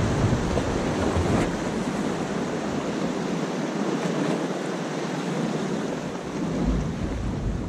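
Sea surf washing against breakwater rocks, with wind buffeting the microphone, heaviest in the first second or so and again near the end.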